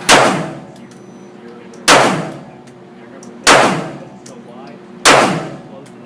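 Glock 42 .380 pistol firing four single shots, about a second and a half apart, each echoing briefly in an indoor range, with light metallic clinks between the shots.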